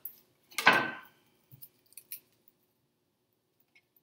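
A kitchen knife working on a wooden cutting board: one short crunching scrape about half a second in, then a few faint light clicks.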